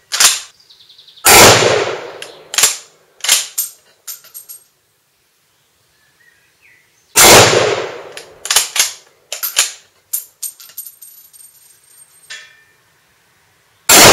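Swiss K31 straight-pull rifle firing 7.5x55mm Swiss rounds: three loud shots about six seconds apart, the last right at the end. Between shots come the sharp metallic clacks and clinks of the straight-pull bolt being cycled.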